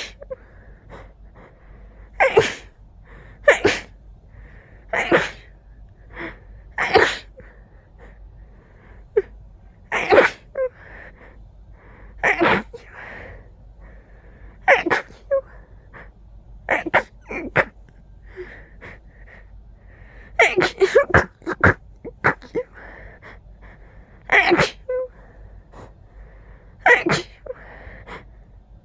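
A person sneezing again and again in a fit: more than a dozen sharp sneezes, one every couple of seconds, with several bunched close together about two-thirds of the way through.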